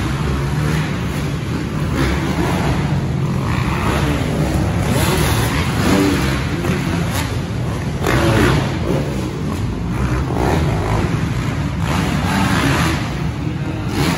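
Dirt bikes racing around an arenacross track, their engines revving up and dropping back again and again.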